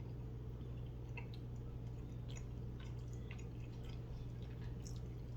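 A person chewing food, with small mouth clicks scattered through, over a steady low hum.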